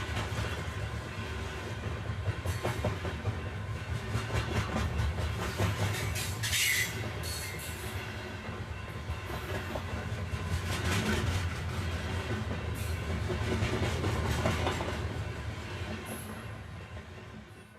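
A train running on rails: a heavy rumble with wheels clattering over rail joints, and a brief high wheel squeal about seven seconds in. It fades away near the end.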